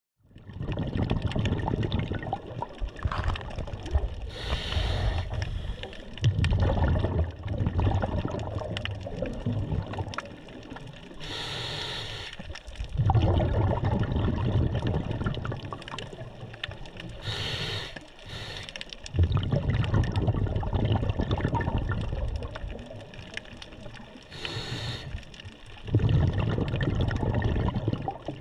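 Scuba diver breathing through a regulator, heard underwater: a short hissing inhale followed by a longer, louder gurgle of exhaled bubbles, repeating about every six to seven seconds.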